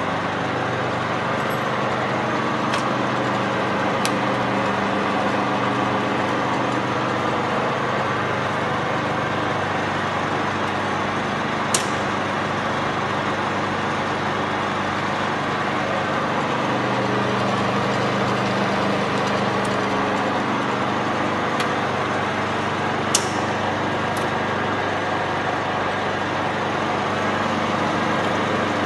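Lubro Scharmann FU 700 universal milling machine running idle, with no workpiece: a steady hum of motor and gearbox. A few sharp clicks sound over it, the loudest near the middle and about four-fifths of the way through.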